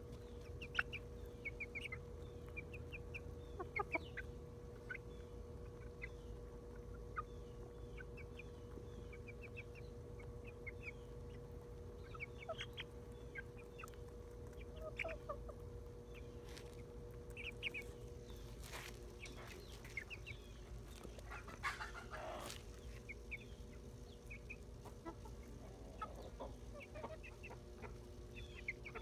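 Silkie chickens clucking and chirping softly while they feed, with short high calls scattered throughout. A few sharp taps come near the middle, and a faint steady hum runs underneath.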